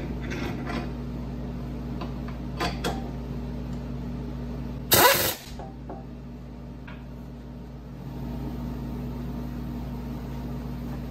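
Metal clicks and taps as a drill bit is fitted and tightened in a collet on a bench mill, over a steady low hum. About five seconds in comes one loud, brief burst of noise.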